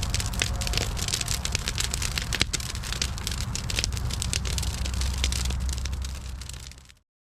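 Wood fire crackling in a cinderblock fire pit, with dense sharp pops over a steady low rumble, fading out near the end.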